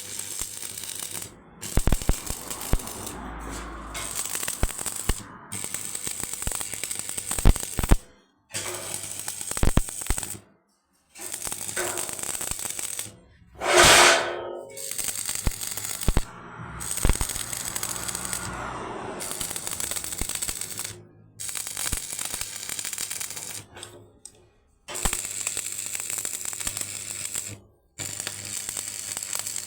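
Electric arc welding: a steady crackling, sizzling hiss with sharp pops, heard in runs of a few seconds that stop abruptly. A louder, fuller burst of noise comes about halfway through.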